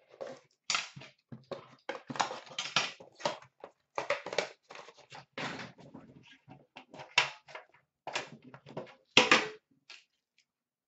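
Hands opening and handling an Upper Deck The Cup metal card tin: a rapid, irregular run of clicks, taps and scrapes of metal and packaging, with a louder knock near the end.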